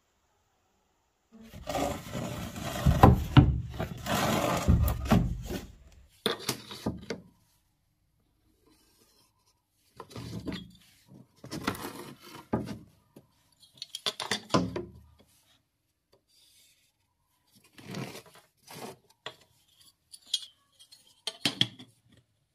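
Handling noise as a laminate flooring plank and a steel ruler are slid and set down on the floor: several bouts of rubbing and scraping with light knocks. The longest and loudest comes in the first few seconds, and there are sharper clicks near the end.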